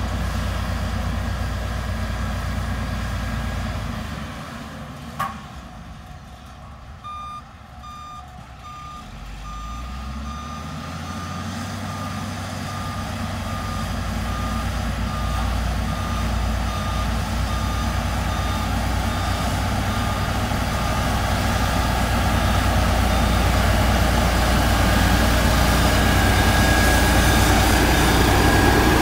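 Diesel engines of vibratory road rollers running with a low rumble that drops away for a few seconds and then builds as one machine comes close near the end. A reversing alarm beeps steadily, about twice a second, from about seven seconds in to about twenty seconds in, with a single sharp click just before the beeping starts.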